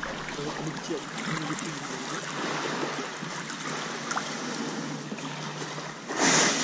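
Shallow water lapping and trickling around a sea kayak's hull as it glides in toward a gravel beach, with small waves washing along the shore. About six seconds in, a louder rushing sound of water begins.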